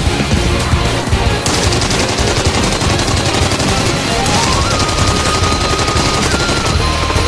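Loud, aggressive action-soundtrack music with a rapid rattling, machine-gun-like fire through it; a lead melody climbs about four seconds in and then holds a steady note.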